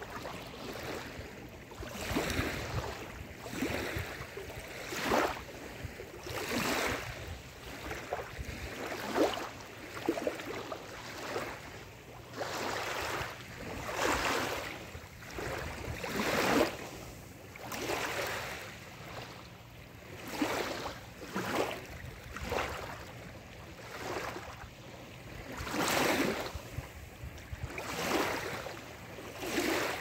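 Small waves lapping onto a sandy shore: a fizzing wash swells and fades every second or two as each ripple runs up the wet sand, over a low steady rumble.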